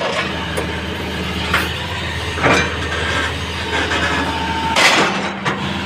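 Hitachi excavator's diesel engine running steadily, with a few sharp knocks over it, the loudest near the end.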